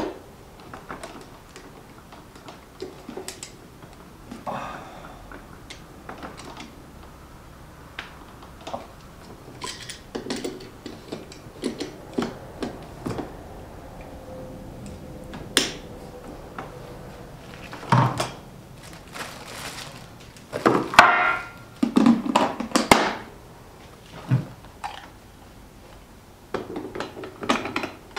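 Scattered clicks, knocks and scrapes of metal and plastic parts as a mincer attachment is handled and fitted to the front outlet of a stand mixer. A denser, louder run of knocks and scraping comes about two-thirds of the way through.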